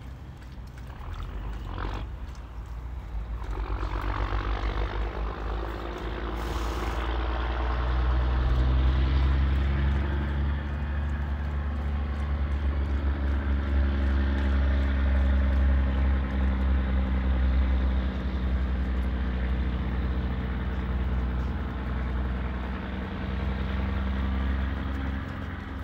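An engine droning: a low, steady hum that builds over the first few seconds and then holds.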